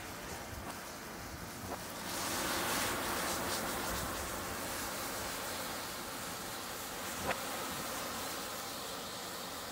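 Massed burning matchsticks hissing and crackling, the hiss swelling about two seconds in, with a sharp pop about seven seconds in.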